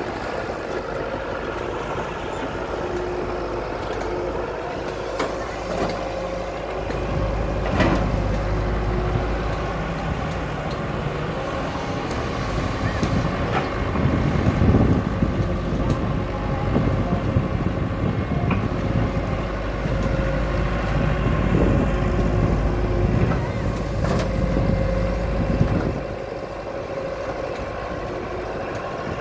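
Kato HD450SEV hydraulic excavator's diesel engine running under load while it digs and swings soil, with a few sharp knocks and clanks. The engine's low rumble grows heavier about seven seconds in and eases off near the end.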